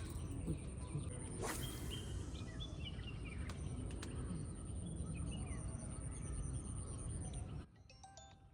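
Outdoor ambience: small birds chirping in short falling calls over a steady low rumble, with a sharp click about a second and a half in. Near the end the ambience cuts off abruptly and faint background music takes over.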